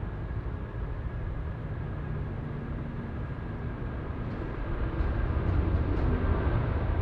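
Jet engines of a Boeing 747 freighter on takeoff: a deep, steady rumble with a faint thin whine above it, growing louder about five seconds in.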